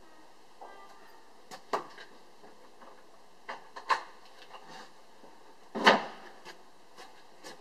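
Wooden knocks and clatter from a plank hut's hinged roof flap being raised and propped open with a wooden pole: a handful of separate sharp knocks, the loudest about six seconds in.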